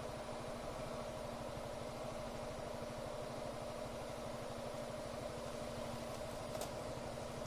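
Honda SH350i scooter's single-cylinder engine running steadily with a rapid, even pulse, with one short tick about six and a half seconds in.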